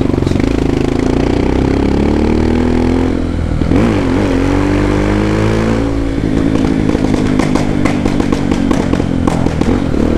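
Honda XR250 Tornado's single-cylinder four-stroke engine through a Belparts Classic exhaust, with a deep, muffled note. It revs up through the first few seconds, drops back, then runs on a closed throttle with a string of exhaust pops in the last few seconds.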